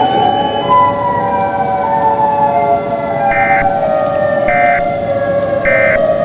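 Several sirens wailing together, their pitches slowly gliding, with three short beeps a little over a second apart in the second half.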